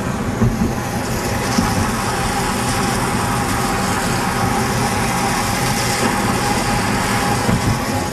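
Steady car engine and road noise heard from inside the car's cabin.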